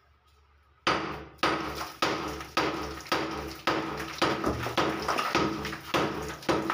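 Hammer blows chipping at the broken edge of a hole in a masonry wall, about two sharp knocks a second, starting about a second in.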